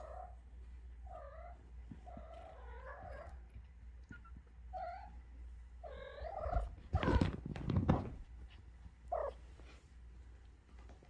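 Young kittens mewing, short high calls repeated every second or so, several close together about two to three seconds in. A loud rustle of handling rubbing against fur and blanket near the microphone comes about seven seconds in and is the loudest sound.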